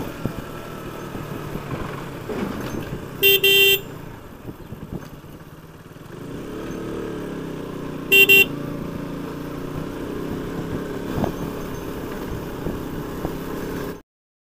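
Motorcycle horn beeping twice, a half-second honk about three seconds in and a shorter one about eight seconds in, over the running engine and road noise of a sport motorcycle ridden slowly. The engine note drops away around four seconds in and picks up again about two seconds later, and the sound cuts off suddenly near the end.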